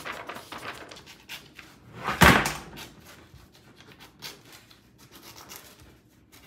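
A sheet of white printer paper being creased and smoothed flat on a desk with the fingers: short rubbing, scraping strokes. One louder thump comes a little over two seconds in.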